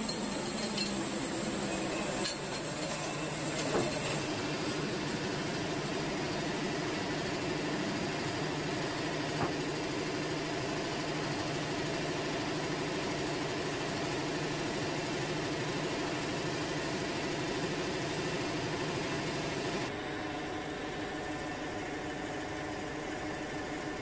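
Wood-Mizer portable sawmill's engine running steadily, with a few faint knocks from boards being handled.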